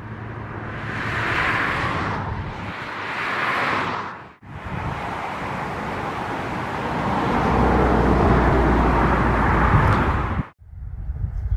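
Road vehicles passing on a highway: two swells of tyre and engine noise in the first few seconds, then a heavier vehicle with a low rumble building up before the sound cuts off suddenly near the end.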